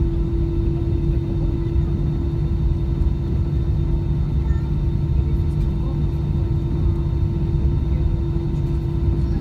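Cabin noise of an Airbus A320-214 taxiing, heard from a window seat over the wing: a steady low rumble from its CFM56 engines at taxi power and the rolling airframe, with a constant hum over it.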